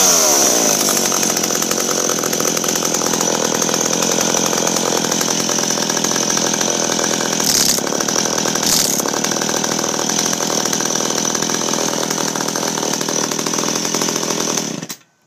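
McCulloch Pro Mac 700 two-stroke chainsaw coming down off high revs at the start, then running steadily with two short blips about eight and nine seconds in, and cutting off suddenly near the end as it is switched off.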